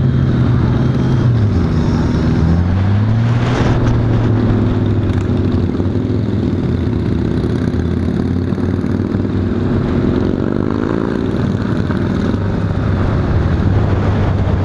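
Honda Valkyrie F6C's flat-six engine heard from the saddle at road speed, its pitch easing down about a second in and then rising again as the bike accelerates, before running steady, over a constant rush of noise.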